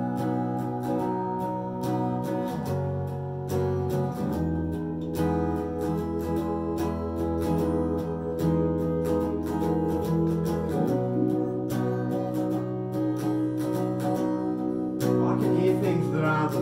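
Band rehearsal music led by an electric guitar, plucked and strummed over steady held chords. A voice comes in near the end.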